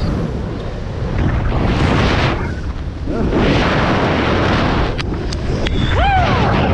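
Wind buffeting the camera microphone in swells during a parachute canopy descent. A few sharp clicks just before the end, then a short whooping yell that rises and falls.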